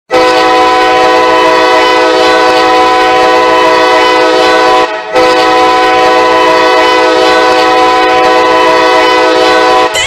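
Nathan K5LA five-chime locomotive air horn sounding a steady chord in two long blasts, each nearly five seconds, with a brief break halfway.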